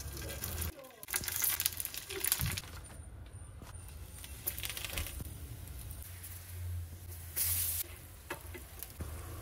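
Oil sizzling in a hot non-stick flat pan as a paratha is laid in and turned with tongs, with louder bursts of hissing about a second in, around five seconds in and near the end.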